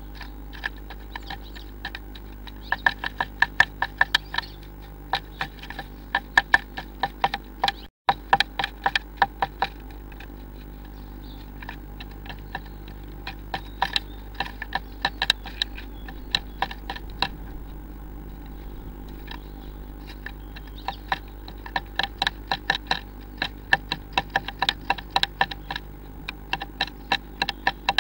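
Blue tit pecking and tapping at the inside of a wooden nest box: runs of quick, sharp taps, several a second, coming in bursts over a steady low hum.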